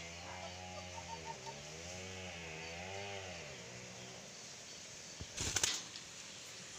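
A rooster crows with one long wavering call that ends about three and a half seconds in. About five and a half seconds in, a short loud burst of wing flapping as a dove flies to another perch.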